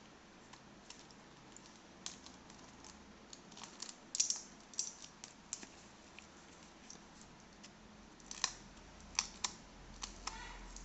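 Snap-off utility knife cutting through packing tape and cardboard, with cardboard being handled and pulled apart: irregular small clicks and scratches, busiest about four seconds in and again near the end.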